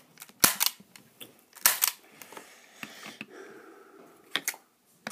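MP40 BB gun being handled, giving several sharp, irregularly spaced clicks and knocks. The loudest come about half a second in and a double click near two seconds in.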